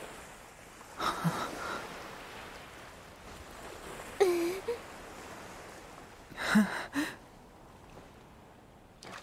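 Soft sea waves washing on a shore, with three brief wordless vocal sounds, breathy gasps and a short 'ah', about a second in, around four seconds in, and around six and a half seconds in.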